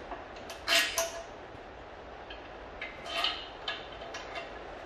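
Engine stand's swivel head being cranked to turn an engine back upright: metal creaks and clanks about a second in, another burst about three seconds in, then a few light clicks.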